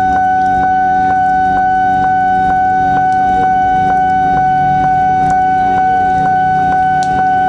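Railway level-crossing warning bell sounding a steady electronic tone that pulses about twice a second, the alarm that a train is approaching or passing.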